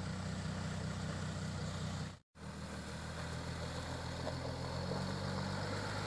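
Jeep Grand Cherokee CRD's V6 turbo-diesel engine running at low revs, a steady drone. The sound cuts out briefly about two seconds in, then the drone carries on.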